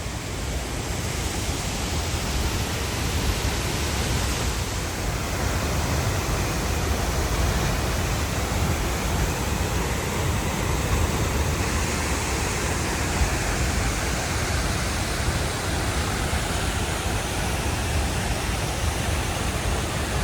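A waterfall: a steady noise of falling water with a deep low rumble, slightly louder after the first couple of seconds.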